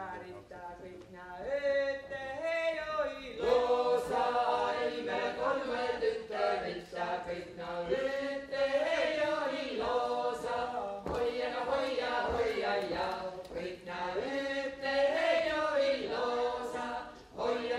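Setu leelo: a small group of Estonian women with one man singing an unaccompanied polyphonic folk song, in phrases a few seconds long with brief breaks between them.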